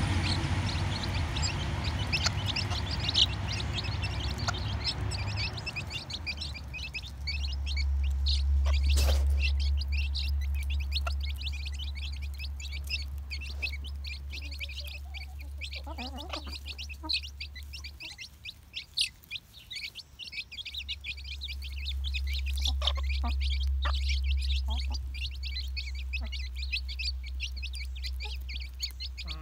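A brood of young chicks peeping rapidly and continuously as they feed on mealworms, with a few lower clucks from the mother hen. A low rumble rises and falls on the microphone, and there is a single sharp click about nine seconds in.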